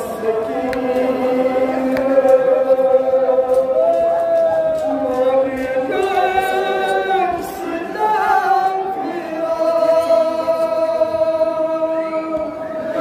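A male reciter sings a Kashmiri noha, a Shia mourning lament, unaccompanied into a microphone in long drawn-out melodic lines, with other men's voices joining in.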